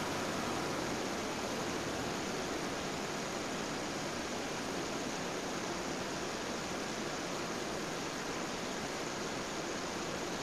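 Steady cabin noise of a Cessna 172SP on final approach with full flaps: an even rush of airflow over the engine's drone, with no change in power.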